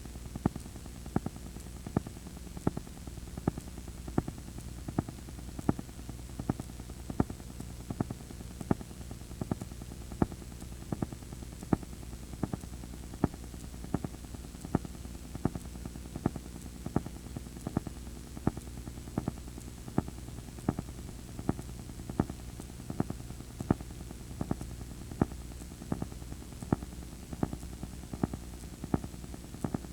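Audio from a VHS tape player running blank tape past the end of a recording: a steady low hum and hiss, with regular clicks about three a second, some louder than others.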